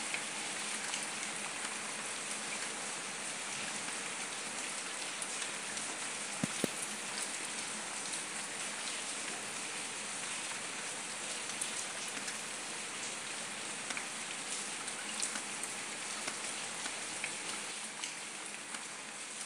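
Steady rain falling on a paved street, a continuous hiss peppered with close drops ticking; a couple of sharper drips about six and a half seconds in.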